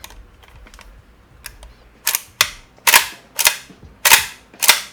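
Pump action of an APS CAM870 gel blaster shotgun being worked back and forth after reassembly. Faint handling clicks come first, then from about two seconds in a sharp clack on each stroke, about six of them roughly half a second apart, as the action is tested for smoothness.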